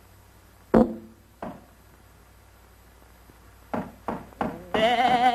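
Early sound-cartoon soundtrack over a steady hiss and hum of an old optical track. A sharp knock with a brief pitched ring about a second in, then a fainter knock. Near the end, three quick knocks run into a loud warbling held tone with several pitches.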